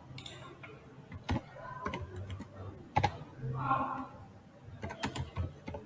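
Typing on a computer keyboard: separate key clicks spaced out at first, then a quicker run of keystrokes near the end.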